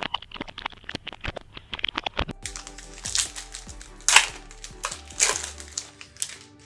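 A trading card hobby box and its card packs being opened by hand: a run of quick clicks and crackles, then several louder tearing, crinkling rasps of the wrapping.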